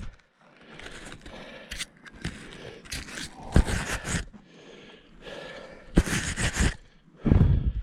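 Irregular crunching and scraping of snow underfoot and of gear being moved over snow, with a few heavier thumps, the loudest near the end.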